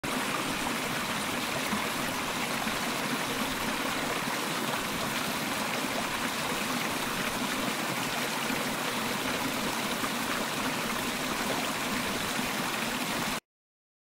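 Waterfall sound effect: a steady rush of falling water that cuts off abruptly near the end.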